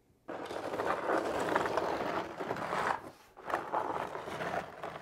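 A sheet of cement board scraping and sliding across a wooden floor as it is set into place, in two long scraping passes with a short break between them.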